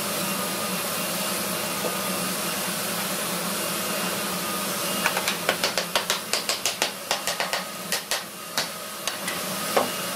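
Wooden mallet knocking on a hardwood cabinet door frame to drive its glued joints home: a rapid run of sharp knocks, about three or four a second, starting about halfway in. A steady hiss runs underneath.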